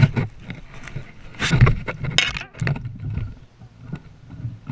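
Handling noise from a GoPro being gripped and moved by hand: irregular knocks, rubs and scrapes against the camera, with two louder scraping rushes between about one and a half and two and a half seconds in.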